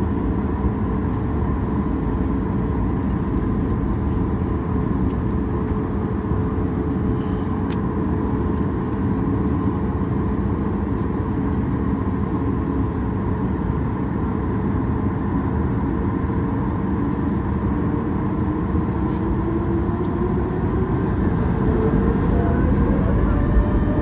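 Boeing 737 MAX 8's CFM LEAP-1B turbofan heard from inside the cabin beside the wing, running steadily at low thrust with a constant hum and whine. From about 20 seconds in, a rising whine builds as the engines begin to spool up for a full-power takeoff.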